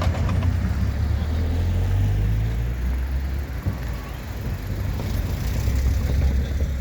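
Diesel locomotive engine running with a steady deep rumble, its lower tones shifting about three seconds in.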